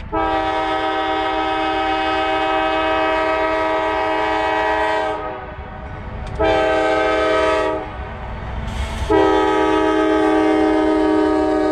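Norfolk Southern diesel locomotive's multi-chime air horn sounding a long blast of about five seconds, a short blast, then another long blast, in the pattern of the grade-crossing signal. Under it runs the low rumble of the approaching locomotive and train.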